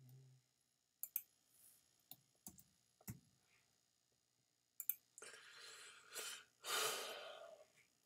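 Several sharp computer mouse clicks spaced over a few seconds, followed by two long breathy exhales near the end, the second one the loudest.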